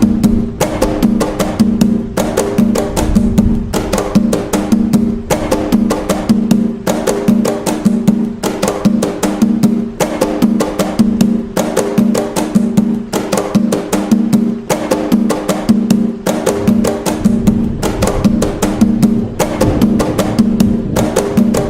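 Atabaque drums playing the nagô toque (toque nagô) of Umbanda: a fast, steady stream of strokes in a repeating rhythmic pattern, with a deep pitched drum tone recurring through it.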